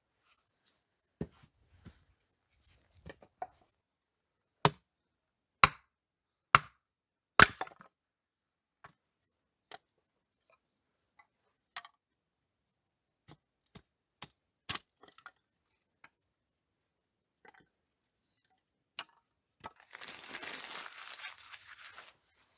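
Irregular sharp chopping knocks, a dozen or so, the loudest four close together a few seconds in, then scattered lighter taps, with about two seconds of rustling near the end.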